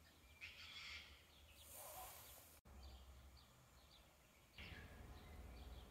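Faint birdsong, short chirps repeating, over a low steady rumble; the sound drops out for an instant a little over halfway through.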